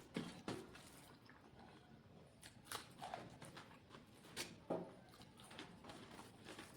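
Eating sounds close to the microphone: faint chewing, broken by a handful of sharp clicky bites and mouth smacks, the loudest shortly after the start and again about four and a half seconds in.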